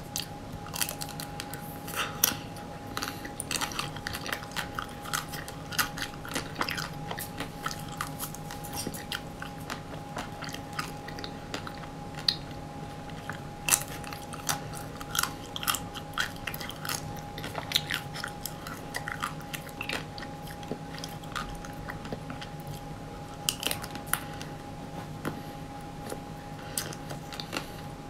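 Close-miked biting and chewing of hard-coated ice cream bars: the shells crack and crunch in irregular sharp clicks between softer mouth sounds. A faint steady electrical hum runs underneath.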